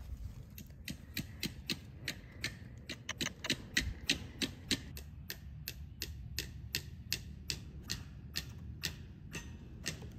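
A rapid series of sharp clicks or taps, about three a second, starting about a second in and stopping shortly before the end.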